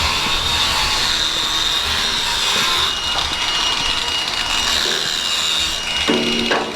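Steady metal-shop machinery noise with a high whine, a second thin tone joining about three seconds in. A short pitched sound cuts in near the end.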